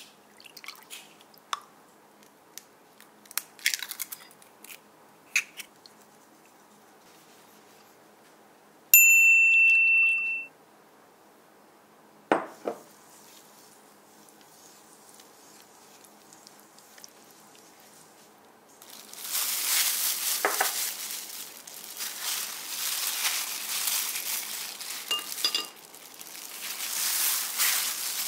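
Light drips and clicks as water is poured into a bowl, then a steady high beep lasting about a second and a half, and a single knock. From about two-thirds of the way in, a plastic food glove crinkles steadily as a hand kneads crumbly flour dough in a stainless steel bowl.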